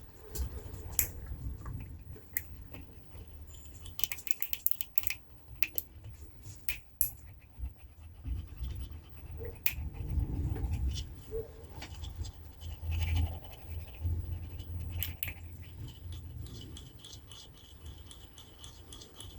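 Scattered small clicks, taps and scratches of hands handling a tweeter and small tools, over a low rumble of handling noise.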